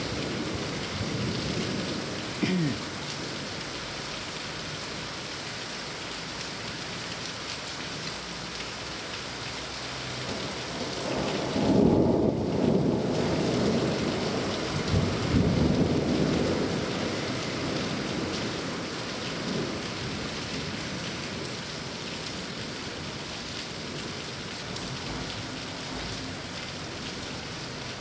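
Steady rain falling, with a long rumble of thunder from about eleven seconds in that swells twice and fades over some six seconds.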